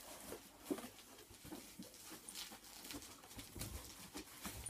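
Cardboard shipping box rustling and scraping, with scattered faint knocks, as a tightly packed boxed toy is worked out of it.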